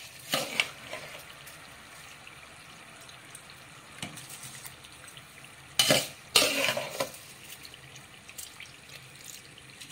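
Washed rice slid off a steel ladle into a large steel pot of boiling water, making splashes: a short burst at the start and a longer, louder one about six to seven seconds in. The water boils quietly in between.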